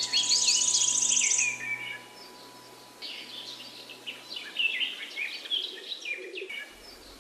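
Birds chirping and calling: a fast high trill in the first second or so, then scattered short chirps and downward-sweeping calls.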